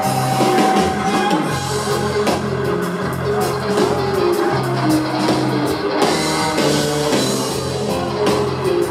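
Live rock band music heard from the audience, with drums and electric guitar over sustained low bass notes that shift pitch every second or so.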